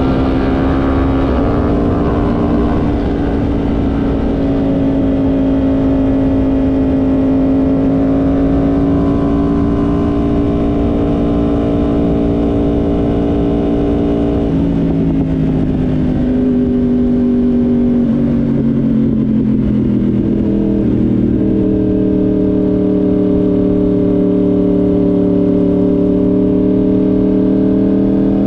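Yamaha YZF-R1M's crossplane inline-four engine running hard on track, heard from on the bike with wind rush. Its pitch holds steady for a long stretch, drops in a few steps about halfway through, then climbs slowly again.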